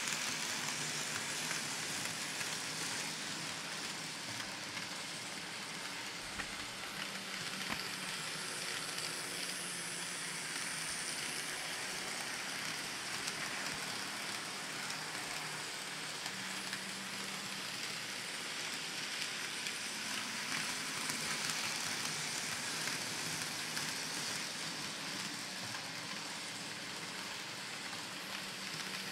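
N scale model train, a Kato GE ES44AC locomotive pulling coal hoppers, running on track: a steady hissing rattle of small wheels on rail with a faint motor hum that comes and goes.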